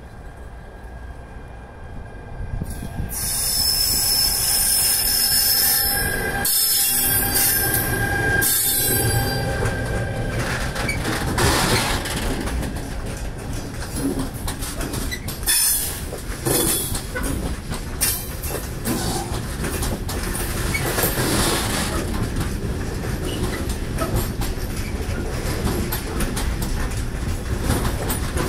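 Freight train led by an FS E405 electric locomotive moving very slowly past at close range, its open box wagons rolling by. High squealing tones from the wheels on the rails come in about three seconds in as the train arrives, then give way to a steady rumble with a dense clatter and clank of wagon wheels and couplings.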